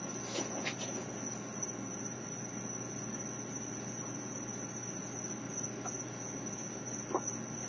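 Steady high-pitched chirring of crickets at night, with a few short faint clicks about half a second in and once near the end.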